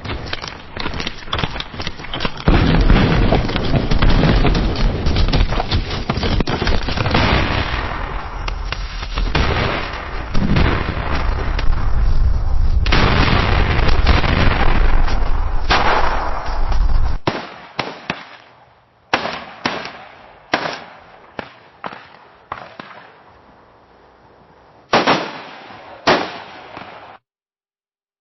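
Battlefield gunfire: dense, rapid shots over a deep rumble of heavy fire. About two-thirds of the way in this gives way to a dozen or so separate shots, each echoing away. It cuts to silence near the end.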